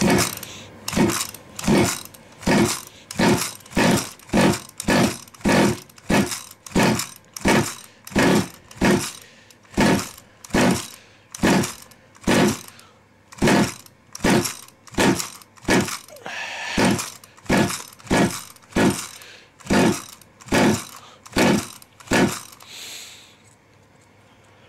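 Pull-starter on an OBR 57cc twin-cylinder two-stroke RC engine being yanked over and over, about three pulls every two seconds, the engine turning over with each pull without catching. It is a cold start on carburettors not yet tuned, and the engine is hard to start. The pulls stop near the end.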